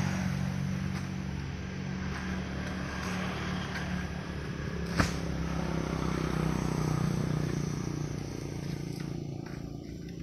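A motor engine running steadily, a low hum that swells a little six to eight seconds in. A single sharp click about five seconds in.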